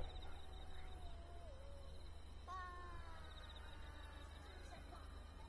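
A single sharp firework bang right at the start. Then a lull with faint, drawn-out, falling voice-like calls, and faint insects in the background.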